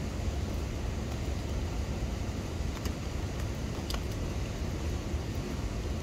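Steady light rainfall over a deep, even low rush, with a few sharp drip ticks about halfway through.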